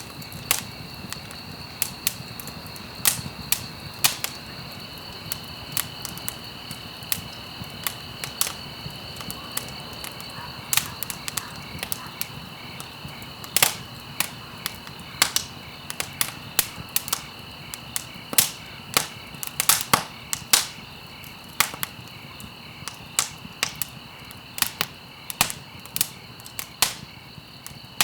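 Wood fire crackling, with irregular sharp pops and snaps, sometimes several close together, over a low steady rush. A faint, steady high-pitched trill runs underneath.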